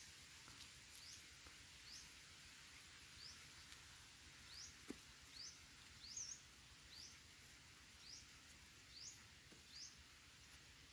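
Faint outdoor ambience with a bird repeating a short, high, rising chirp about once a second, and a single soft click near the middle.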